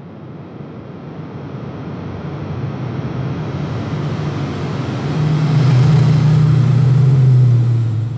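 Airplane flying past: its engine drone and rushing noise grow steadily louder to a peak, then the low drone drops slightly in pitch as it passes and begins to fade near the end.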